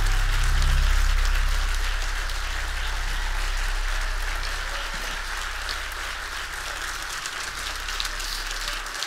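Audience applauding, dense clapping that slowly dies down, over a low sustained tone that fades and stops near the end.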